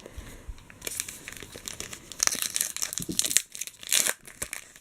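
A 2012 NASCAR Fan Fare trading-card pack wrapper being torn open and crinkled by hand, in irregular bursts of crackling that start about a second in and are busiest in the middle.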